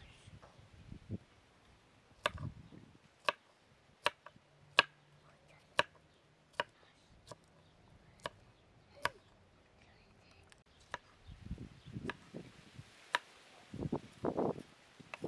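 Knife chopping on a cutting board: single sharp cuts at about one a second, then duller thumps and handling noise near the end.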